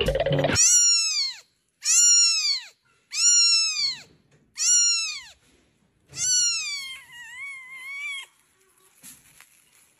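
Tiny newborn kitten mewing: five high-pitched calls, each rising then falling, the last one longer and wavering.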